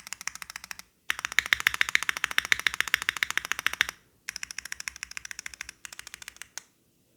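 Fast typing on a custom gasket-mounted 65% mechanical keyboard with a copper case, carbon fibre plate, Gateron Khonsu linear switches and Keykobo Machinist keycaps, with no foam inside. It comes as bursts of rapid keystrokes with brief pauses between them, ending with a single keystroke near the end.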